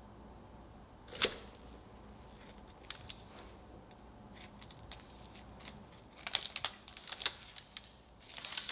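Knife pressing down through a baked fudgy brownie, its thin crisp top crust cracking in sharp crackles and clicks: one loud crack about a second in, a few scattered ticks, then quick clusters of crackles in the second half.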